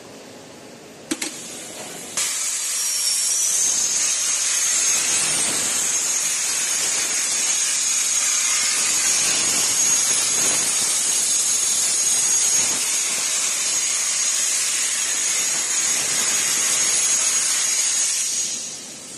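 Hypertherm HPR400XD plasma torch cutting: a short sharp crack, then about a second later the arc starts with a loud steady hiss and a high, thin whistle, and it cuts off about a second before the end.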